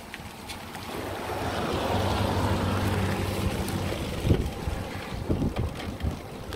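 A Toyota SUV overtakes the bicycle: its low engine hum and tyre rush on the wet lane swell up over the first couple of seconds and fade as it pulls ahead. Wind buffets the microphone, and there is a sharp thump about four seconds in.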